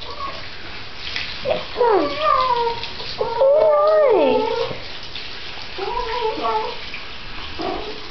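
A puppy whining and moaning during her bath: several drawn-out, wavering whines that sag in pitch at their ends, the longest and loudest about three and a half seconds in. These are the sulking noises she makes because she hates being bathed.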